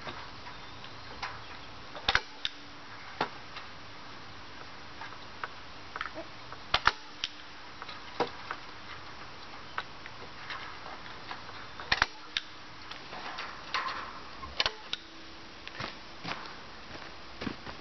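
Staple gun snapping as it drives staples through chicken wire into a wooden frame: more than a dozen sharp snaps at irregular intervals, some in quick pairs.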